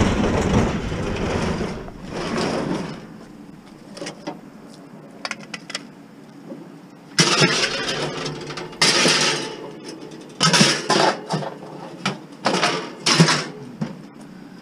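A vehicle engine rumbles for the first few seconds, then falls away. Faint clicks follow, and from about halfway through there is a series of loud, irregular rustling and clattering bursts.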